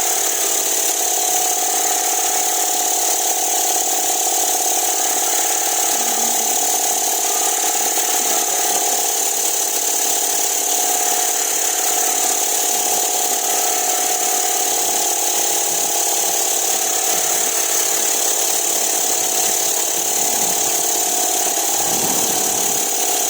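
Steady, loud machinery noise: a constant mechanical drone with a held mid tone and a strong high hiss, unchanging throughout.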